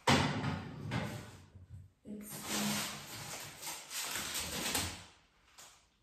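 Fridge door and the things inside it being handled: a sudden knock at the start, then rustling and clattering that pauses briefly just before two seconds in and goes on for about three seconds more before fading.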